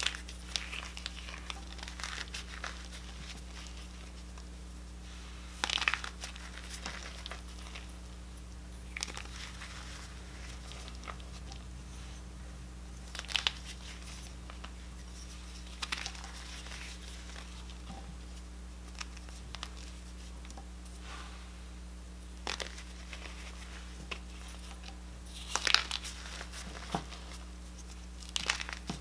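Reformed gym chalk pieces crushed between fingers, crunching and crumbling into powder in short bursts every few seconds, the loudest near the end.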